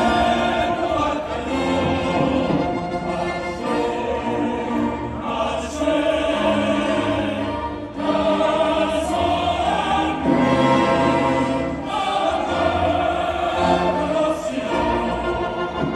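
Symphony orchestra and choir performing classical music live, with sustained sung chords over the orchestra that change every second or two.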